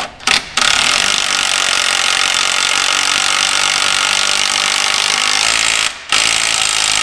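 Impact wrench running down the bolts of a new fan clutch. A few short blips, then one long run of about five seconds, a brief stop near six seconds, and a final short run near the end.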